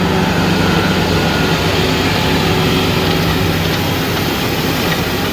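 Tractor engine running steadily under load while pulling a Horizon DSX 9 m direct drill planting cover-crop seed, a constant low hum with no change in pitch.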